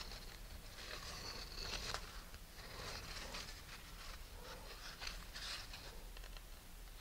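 Faint, irregular rubbing and scratching of string being wound tightly around the nylon rotor-blade hinges on a model rocket's body tube.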